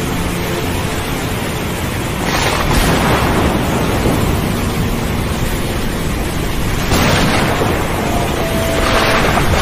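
Rough sea with waves surging and breaking in a steady rush of wind. Bigger wave surges swell up about two seconds in, about seven seconds in, and again near the end.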